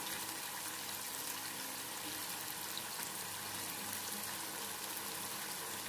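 Onion-tomato masala with a little water simmering in a pot: a steady, soft sizzling and bubbling.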